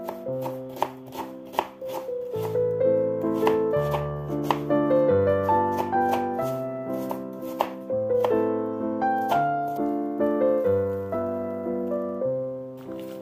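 Kitchen knife chopping onion on a cutting board: irregular sharp knocks of the blade against the board, over background piano music.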